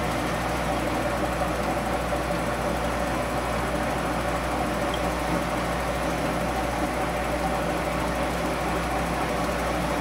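Milling machine running off a phase converter: a steady, even mechanical hum with a low drone underneath.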